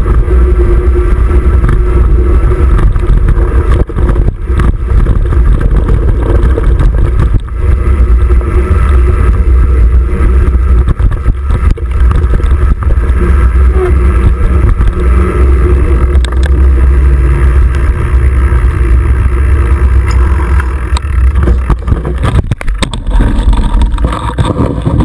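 Steady low wind buffeting and rolling rumble on a handlebar-mounted action camera as a mountain bike rides a dirt trail. A few sharp knocks near the end come as the front wheel meets a concrete curb.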